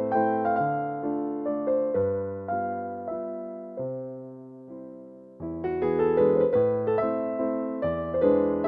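Background piano music: chords and melody notes that strike and die away. It grows quieter toward the middle, then comes back louder and fuller about five and a half seconds in.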